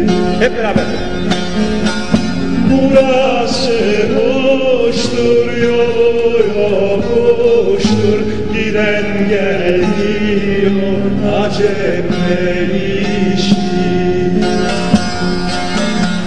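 Live Turkish folk song (türkü): a male voice sings a long, ornamented melody over plucked saz (bağlama) strings, heard from the audience in a large hall.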